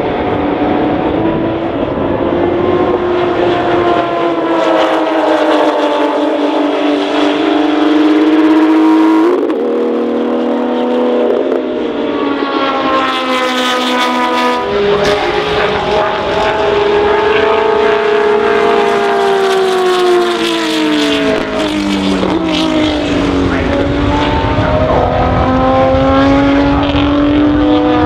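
Historic race car engines at high revs, rising in pitch through the gears and dropping in sudden steps on lift-off and downshifts, several times over as different cars go by. Near the end a car accelerates away with its pitch climbing steadily.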